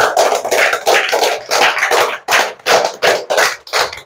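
A small group of children applauding with their hands: a dense patter of claps that, about halfway through, settles into slower, evenly spaced claps, about three a second.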